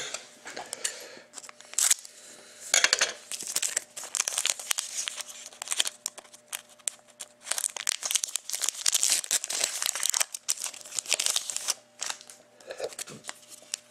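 The wrapper of a 2013-14 Panini Contenders hockey card pack being torn open and crinkled, with the cards then handled: an irregular run of sharp crinkles, tears and rustles.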